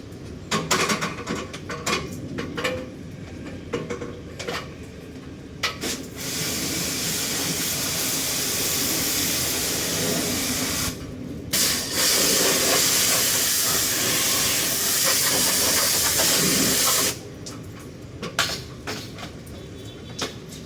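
Water jetting from a spray nozzle in two long steady spells of about five seconds each, with a short break between, during air-conditioner cleaning. Knocks and clatter of parts being handled come before and after.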